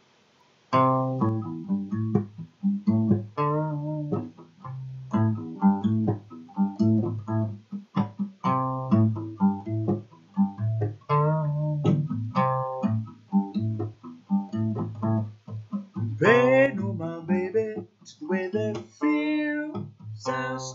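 Solo guitar playing the opening of a song, notes picked one after another in a steady pattern, starting about a second in after a brief silence.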